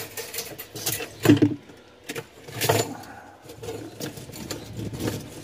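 Gloved hands handling a refrigerator's aluminum evaporator coil and its defrost-heater wiring: scattered light metal clinks, rattles and knocks with rustling between them, with louder knocks about a second in and again in the middle.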